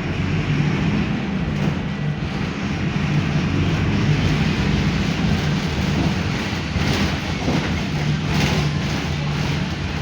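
Mercedes-Benz OF-1519 Bluetec 5 bus's four-cylinder diesel engine running steadily on the move, a constant low drone under road and body noise, with a few short rattles in the second half.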